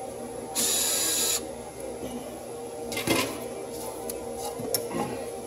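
A small electric screwdriver whirs for under a second, loosening a worm-drive hose clamp. A few light metallic knocks and clicks follow about halfway through and near the end.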